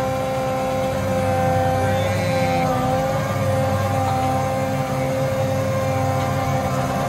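John Deere 8320R tractor's diesel engine running steadily under load as it pulls a tile plow in first gear, with a steady high whine over the engine drone.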